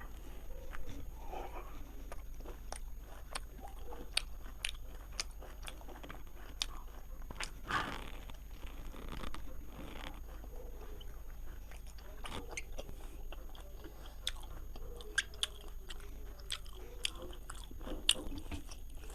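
A person eating a mouthful of rice with pickle close to the microphone: chewing and biting, with many small scattered crunches and mouth clicks.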